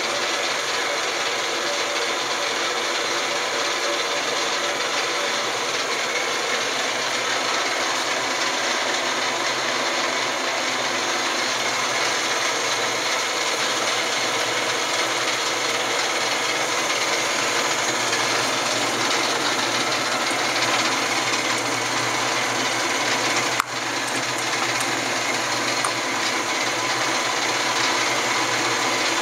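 Lodge & Shipley 14-inch geared-head engine lathe running with no cut, a steady mechanical whir with faint steady tones from the drive, unbroken throughout, with one short click late on.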